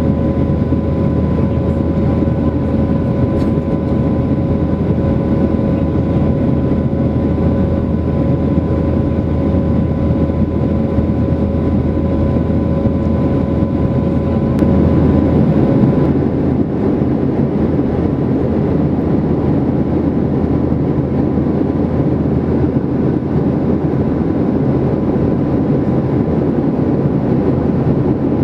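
Cabin noise of a Boeing 737-800 in climb, heard from a window seat over the wing: the steady rush of air and the drone of its CFM56-7B turbofan engines, with a steady whine. About halfway through, one whining tone stops and the low rumble shifts a little.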